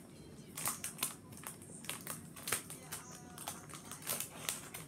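Plastic candy-kit packet crinkling and crackling in many quick, sharp rustles as hands work it open.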